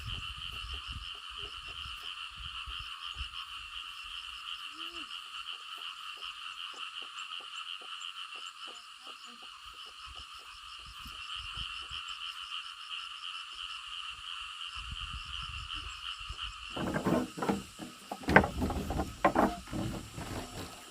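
Frog chorus: a steady, fast-pulsing trill. Loud irregular knocks and rustling come in near the end.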